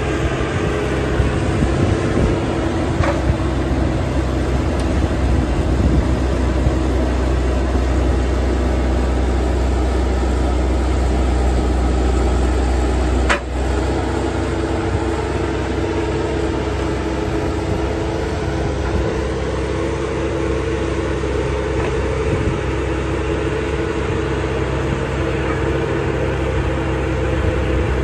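Bobcat T250 compact track loader's turbo diesel engine running steadily while the machine carries an old tractor on its forks, with a brief sharp break about halfway through.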